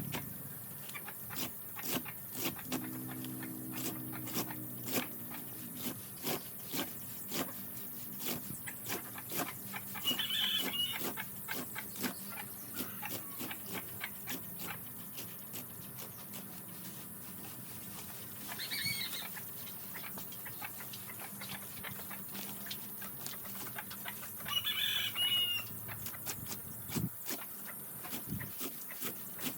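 Pigs eating, with rapid wet chewing and smacking clicks, and three short high-pitched animal calls spaced several seconds apart.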